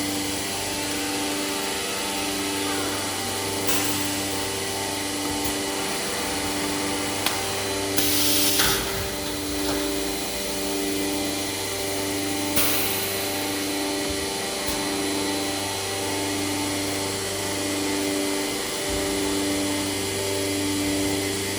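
IMA Bima 400V CNC machining centre running with a steady mechanical hum, and a tone pulsing on and off about once a second. Three short bursts of hiss cut in about four, eight and twelve and a half seconds in.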